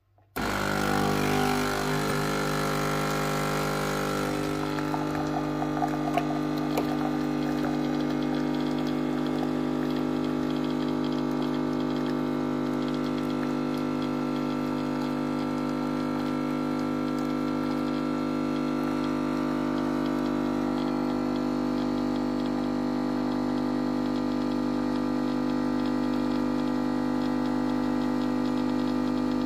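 Nespresso capsule coffee machine brewing a lungo. It starts abruptly with a hissy surge for the first few seconds, then settles into a steady mechanical hum.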